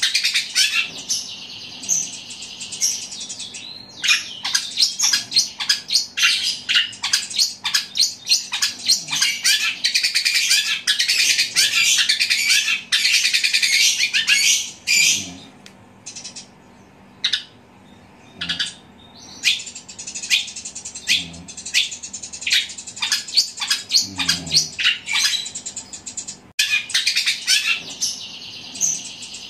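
Caged long-tailed shrike (cendet) singing loudly in rapid chattering runs, imitating the squabbling calls of fighting sparrows. Around the middle there is a short lull with only scattered calls before the fast chatter resumes.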